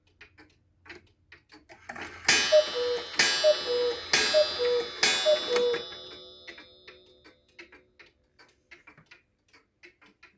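Mechanical cuckoo clock ticking steadily, then sounding four two-note falling cuckoo calls about a second apart, each opening with a sharp strike that rings on after the last call.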